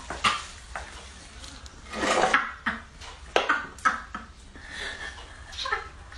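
Chopsticks and dishes clattering: a series of sharp clicks and knocks, with a longer burst of clatter about two seconds in.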